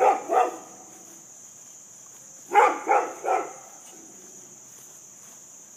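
A dog barking in two quick sets of three barks, one at the start and one about two and a half seconds in, over a steady high buzz of insects.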